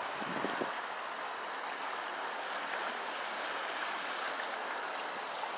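Flooded creek running high and fast over rocks: a steady, even rush of water.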